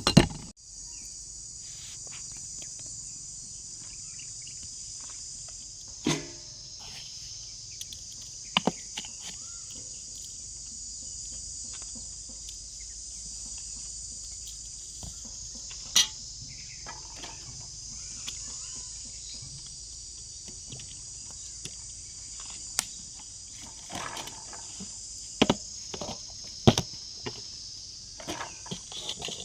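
Insects chirring steadily at a high pitch, with scattered sharp knocks and clicks: a loud one at the very start, a few through the middle and a cluster near the end.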